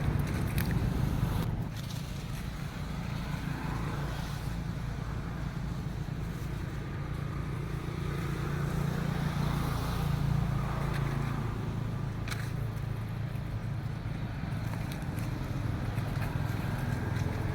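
A motor vehicle's engine running steadily with a low rumble, with a few faint clicks.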